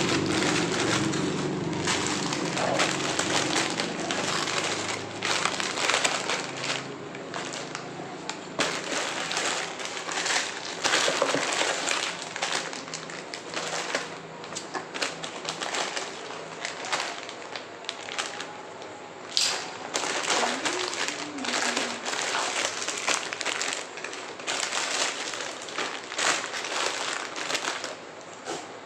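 Plastic and paper packaging crinkling and rustling in irregular bursts as a bag of groceries is unpacked by hand.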